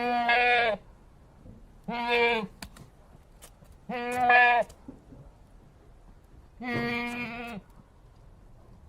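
A goat bleating four times, each call held at a steady pitch for about half a second to a second, with pauses of one to two seconds between calls.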